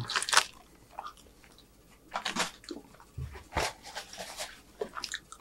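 Scattered, quiet rustles of a paper napkin being handled and wiped across the mouth, with a couple of soft low thumps a little past the middle.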